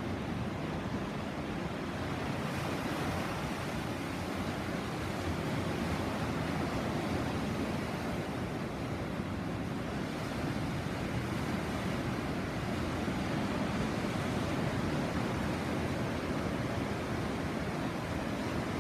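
Sea waves breaking and washing on the shore, a steady rush of surf with no distinct single crashes.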